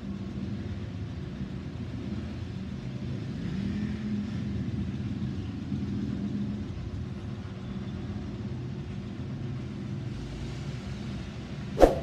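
Steady low rumble of vehicle engines, swelling a little in the middle as if one passes, with a short sharp click just before the end.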